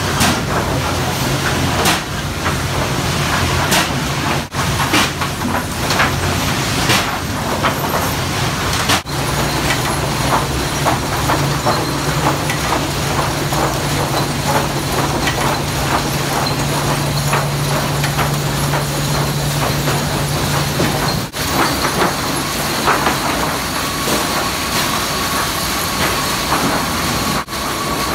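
Sawmill machinery running: chain conveyors and boards clattering and knocking over a steady machine hum. The mix of the din changes abruptly several times.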